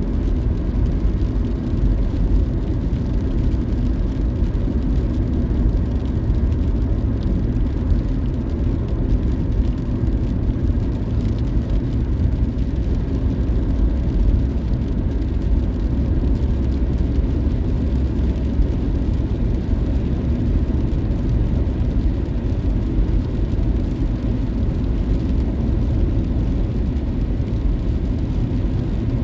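A car driving on the road, its tyres and engine making a steady low rumble.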